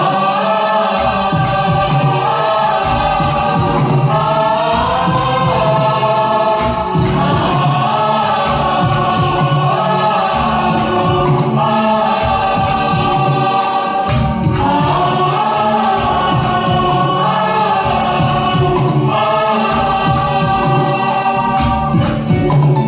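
Song music: a wordless, choir-like vocal line in long phrases over a steady percussion beat with tambourine.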